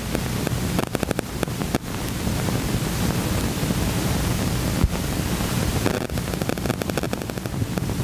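Hiss and crackle of an old 16mm film soundtrack, with many small clicks and a steady low rumble underneath.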